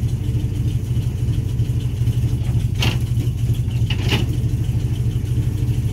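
An engine running steadily with a low, even hum. Two short clicks come about three and four seconds in.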